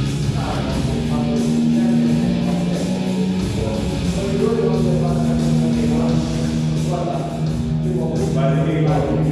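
Loud music with distorted electric guitar and long held low notes.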